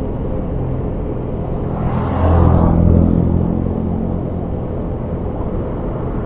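Motorcycle ride: steady engine hum and wind and road noise from the rider's own bike. About two seconds in, an engine grows louder for about a second and a half, then settles back.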